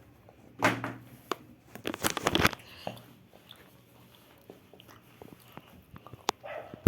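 Irregular clicks, knocks and crunching sounds from handling things, with the loudest cluster about one to two and a half seconds in and fainter scattered ticks after.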